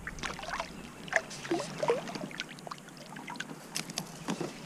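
Short, irregular splashes and water gurgles beside a kayak as a hooked white bass thrashes at the surface while it is reeled in.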